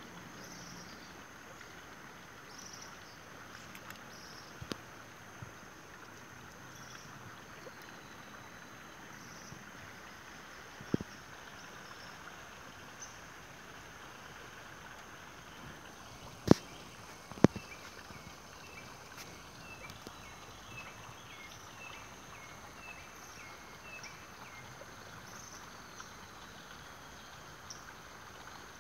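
Outdoor creek-side ambience: a steady high-pitched insect drone over a soft hiss, with a quick run of short chirps a little past two thirds of the way through. A few sharp clicks break in, the loudest two about a second apart just past the middle.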